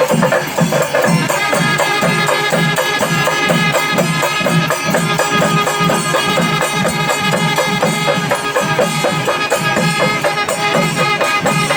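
Kerala temple-festival music: drums beating a fast, steady rhythm under a held melody from a wind instrument.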